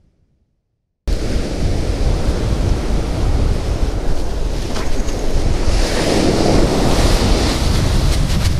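Ocean surf breaking and washing up the beach, with strong wind rumbling on the microphone. It cuts in suddenly about a second in after a moment of silence, and swells louder midway as a wave rushes up the sand.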